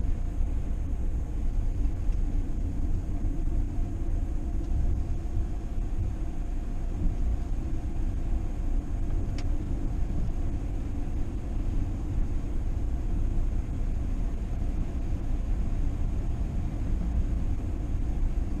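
Steady low rumble of a moving vehicle, engine and road noise heard from inside the cabin.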